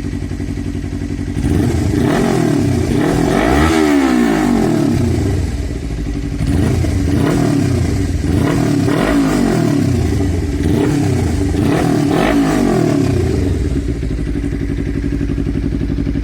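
Suzuki Inazuma 250 parallel-twin engine with a Jeskap full 2-into-1 exhaust. It idles, is revved up and let fall back about five times in a row, then settles back to idle near the end.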